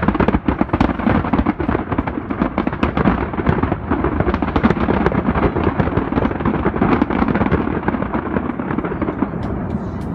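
Fireworks display: a dense, continuous barrage of aerial shell bursts and crackling, many sharp reports a second, thinning slightly near the end.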